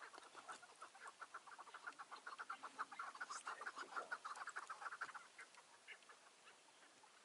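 Chukar partridge calling: a rapid run of short clucking notes that builds up, is loudest in the middle, and breaks off about five seconds in.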